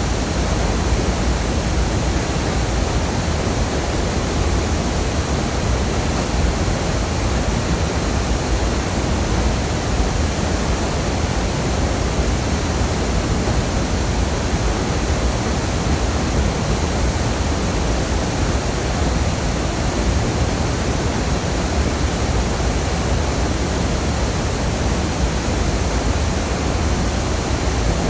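Waterfall: water falling in a loud, steady, unbroken rush with a strong low rumble.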